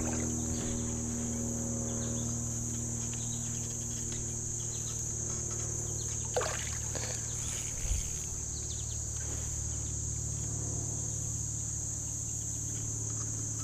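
Insects trilling steadily in one high, unbroken band over a low, steady background rumble, with a couple of brief soft knocks or splashes about halfway through.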